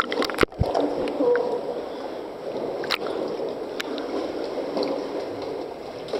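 Sea water sloshing and gurgling inside a sea cave, with a few sharp clicks just after the start and another about three seconds in.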